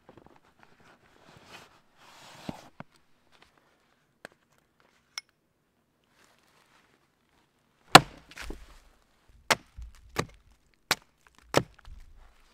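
Axe chopping a thin birch pole laid across a log: about six sharp wooden chops in the last five seconds. Before that, soft rustling and a few light knocks.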